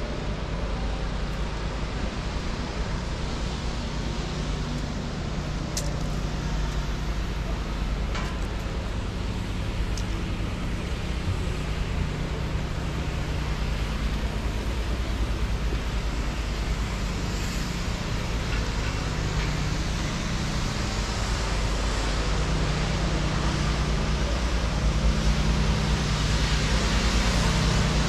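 Steady city street ambience of road traffic running past, growing a little louder near the end.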